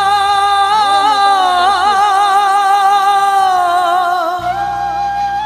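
A song with a single voice holding one long note with a wavering vibrato over a steady low drone.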